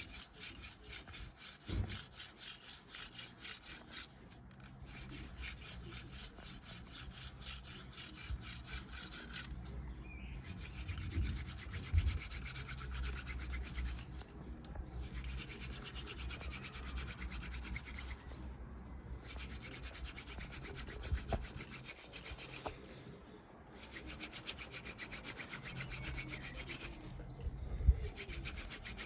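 Elder hand-drill spindle spun between the palms on an ivy hearth board: a steady, dry wood-on-wood rubbing that stops briefly every four to five seconds. This is the warm-up stage of a friction fire, heating the hearth before working for an ember.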